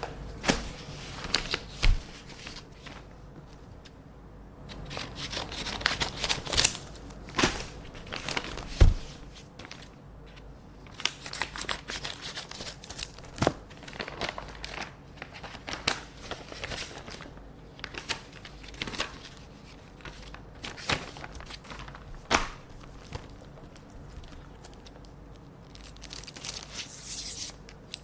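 Paper envelopes being opened by hand: tearing and crinkling paper with irregular sharp snips and clicks as letters are cut open with scissors. A couple of low thumps, the loudest about nine seconds in, as things are set down on the desk.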